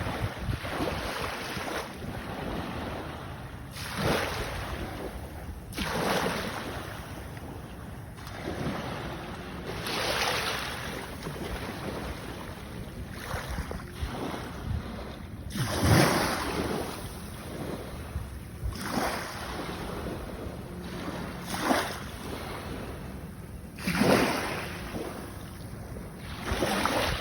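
Ocean waves washing in at the shore, the surf swelling and falling away every few seconds, with the loudest surges in the middle and near the end. Wind buffets the microphone throughout.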